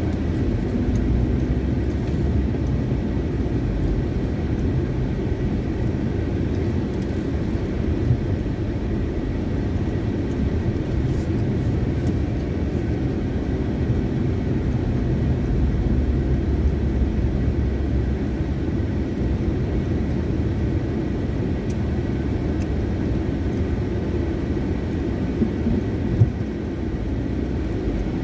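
A car driving, heard from inside the cabin: a steady low rumble of engine and road noise, with a small knock about eight seconds in and another near the end.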